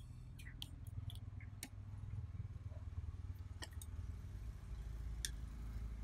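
Scattered light clicks and taps of a disassembled phone's parts and a metal tool being handled on a rubber repair mat, over a steady low background rumble.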